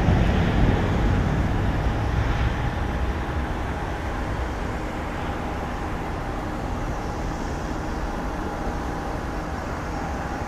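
Jet engine noise from a Boeing 737-900ER's twin CFM56-7B turbofans at takeoff thrust as the airliner lifts off and climbs away. The noise fades over the first few seconds, then holds at a lower, steady level.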